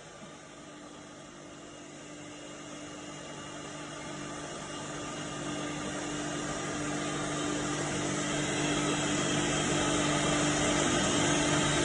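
A machine running with a steady low hum over a hiss, growing gradually louder.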